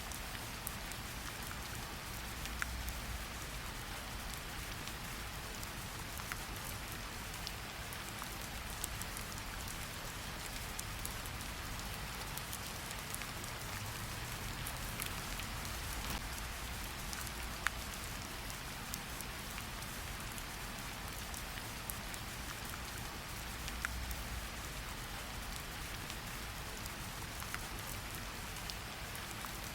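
Steady rain hiss with scattered sharp crackles and pops from a fireplace fire, and a few faint low rumbles.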